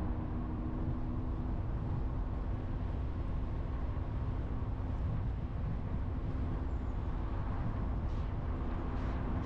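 A car driving along a road: a steady low rumble of tyres and engine with a faint, steady engine hum.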